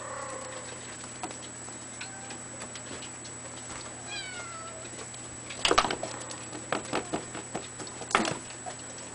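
Fawn Abyssinian kitten giving a few short, falling meows, the clearest about four seconds in. Sharp clattering knocks from its play come twice, about halfway through and near the end, and are the loudest sounds, with light clicks between.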